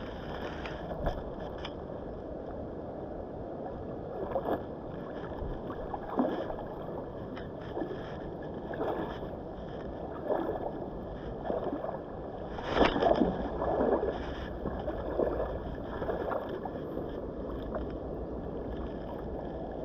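Steady rush of a fast-flowing river with irregular water splashes every second or two, the loudest about two-thirds of the way through.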